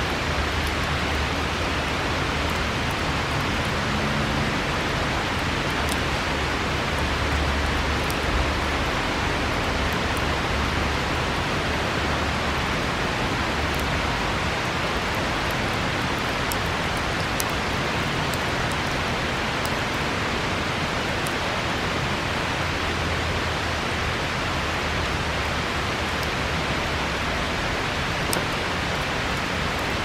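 Steady rush of a nearby river, with a few faint crackles from a wood campfire scattered through it.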